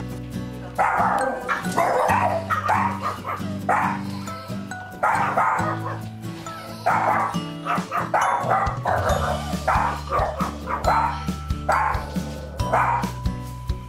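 Small dog, a Pomeranian–Maltese mix, barking over and over in quick runs of short barks, barking at its returning owner. Background music plays underneath.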